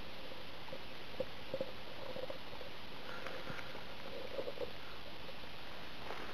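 Steady hiss with a few faint clicks and rustles from dry leaf litter and a handheld camera being moved close to the ground.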